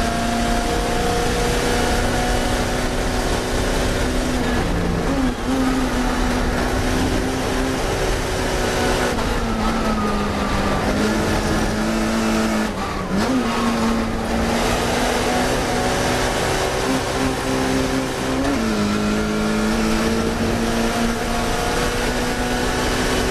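Classic Mini race car's engine running hard at high revs, heard from on board. The engine note holds steady and then dips and picks up again several times as the revs change.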